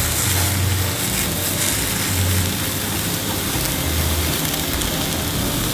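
Poffertjes batter sizzling steadily in a buttered takoyaki pan as the half-cooked balls fry.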